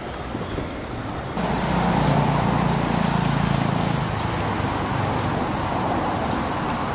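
Steady city traffic noise, a continuous rumble and hiss that steps up in level about a second and a half in.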